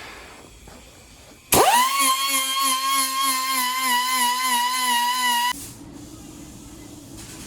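High-speed air tool starting up: its whine climbs quickly to a steady high pitch, runs for about four seconds, then cuts off suddenly.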